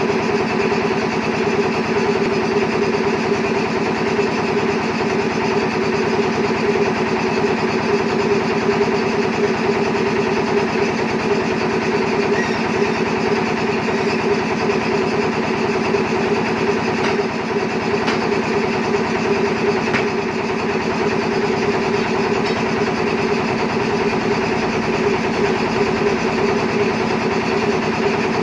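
An engine idling steadily with an even, fluttering drone, with a few faint clicks over it.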